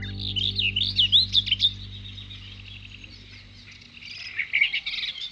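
Small birds chirping and twittering in quick rising and falling calls. They are busiest in the first second and a half, thin out, and pick up again from about four seconds in. A held music chord fades out under them in the first two seconds.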